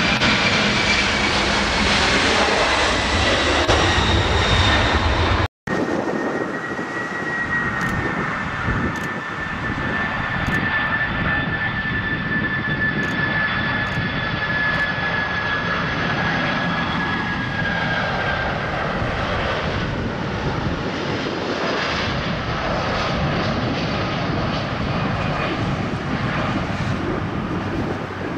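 Boeing 747-400 jet engines at takeoff power: a loud roar with a high whine that falls slightly. About five and a half seconds in it cuts off abruptly, and a second Boeing 747-400 is heard on approach, a steady roar with a high whine slowly dropping in pitch.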